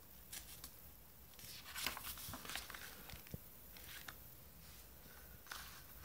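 Faint rustling with a few light clicks and taps, busiest about two seconds in.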